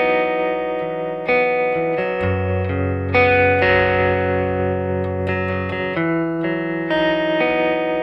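Instrumental background music led by guitar chords that change about once a second, with a low bass line coming in about two seconds in and dropping out near six seconds.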